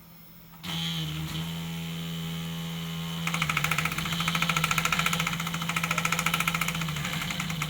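Stepper motors of a DIY pen plotter running: a steady electric hum starts suddenly, and about three seconds in a rapid, even ticking joins it as the machine moves.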